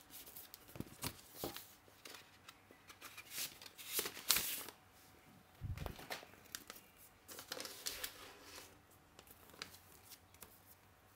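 Irregular rustling and crinkling with scattered sharp clicks, loudest about four seconds in; no music is playing yet.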